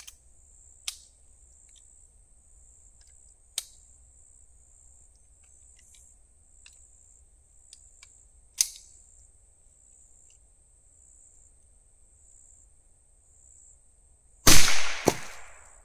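A single .22 rimfire rifle shot about a second and a half before the end, loud and sudden, with a second sharp crack about half a second later as the report dies away; the bullet punches a hole through a clay target. Steady high insect buzzing underneath, with a few faint ticks earlier on.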